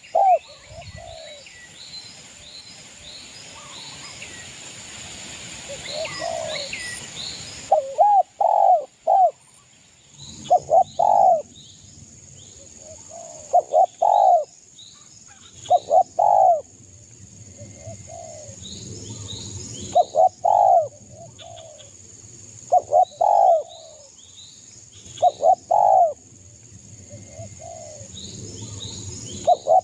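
Spotted dove (derkuku) cooing, one phrase about every two to three seconds, with faint higher-pitched chirping between the phrases.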